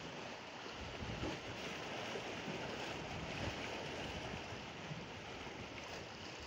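Steady wash of sea water and small waves breaking on rocks, with low rumbling wind on the microphone.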